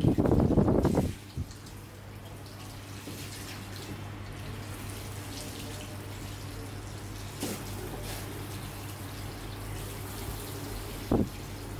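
Handheld shower sprayer running over a salon shampoo basin, rinsing hair: loud for about the first second, then water running and dripping more softly with a steady low hum underneath.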